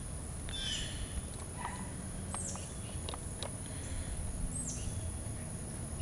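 Outdoor ambience with birds chirping: three short calls, each sweeping down in pitch, spaced a couple of seconds apart, over a steady low background. A few faint clicks of hands handling wiring and a rubber terminal boot.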